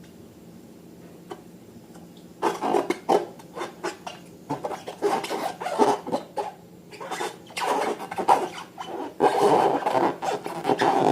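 Slime being worked by hand: irregular squishing, rubbing sounds in bursts, starting about two seconds in.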